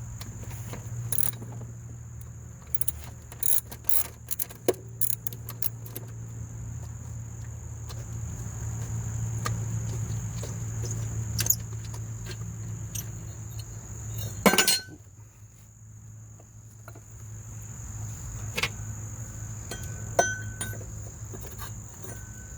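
Steady chirring of crickets, with scattered sharp metallic clicks and clinks of a socket wrench on the mower's bracket bolt, and one loud metal clatter about two-thirds of the way through.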